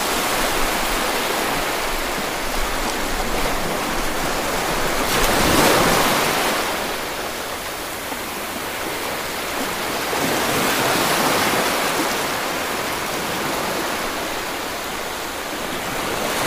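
Rushing water noise with no music, an even hiss that swells louder about five seconds in and again about ten seconds in, then eases.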